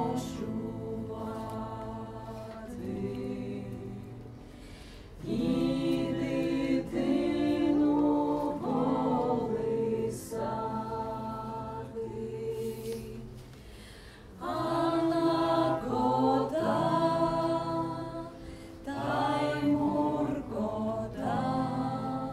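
A small group of voices singing a Ukrainian song unaccompanied, in sustained phrases of a few seconds that fall away briefly between them.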